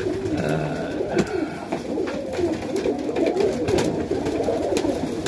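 Many domestic highflyer pigeons cooing together, overlapping coos rising and falling without a break, with a few sharp clicks among them.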